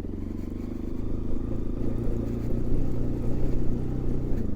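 Bajaj Pulsar NS200 motorcycle's single-cylinder engine running at low, steady revs while riding, picking up slightly about a second in.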